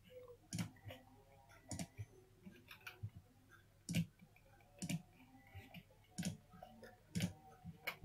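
Computer mouse button clicks, single sharp clicks roughly one a second, as the pointer clicks buttons and checkboxes.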